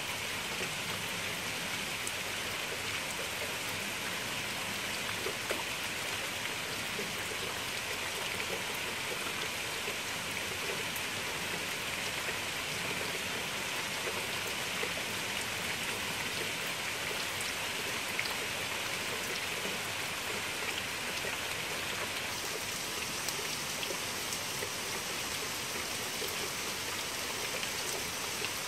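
Steady rain falling on leaves and gravel: a continuous hiss flecked with small drop ticks. The hiss changes tone about three-quarters of the way through.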